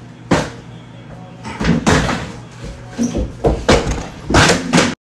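A series of loud bangs and thuds at irregular intervals, like something being slammed or struck, over a low hum. The sound cuts off suddenly near the end.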